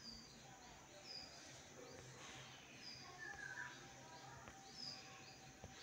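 Near silence: faint room hum with short, high chirps every second or two, a small bird calling.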